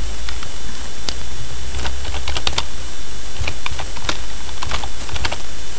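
Computer keyboard being typed on: short key clicks in irregular little runs, over a steady low hum and hiss.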